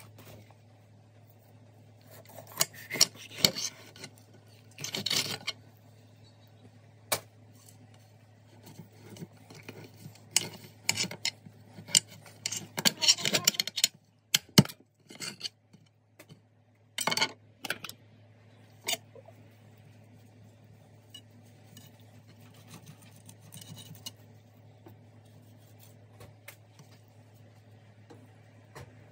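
Knife and hands working a fish on a hard kitchen counter while it is cleaned: scattered scrapes and sharp clicks in bursts, with a faint steady low hum underneath.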